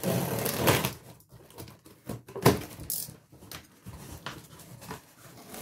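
Packing tape ripped off a cardboard parcel, then the box flaps pulled open with cardboard scraping and rustling. A sharp knock about two and a half seconds in is the loudest sound.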